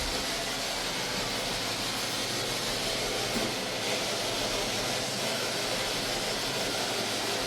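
Ice machine running with a steady, even noise.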